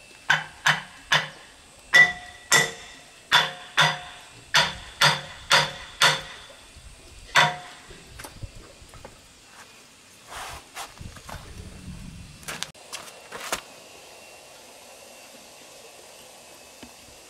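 Hammer blows on metal, about a dozen strikes at roughly one to two a second, each with a short ringing tone. After them come a few lighter knocks and clinks.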